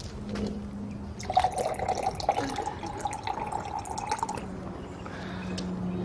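Liquid pouring into a drinking glass, a steady trickle with splashing drips, its pitch rising slightly as the glass fills.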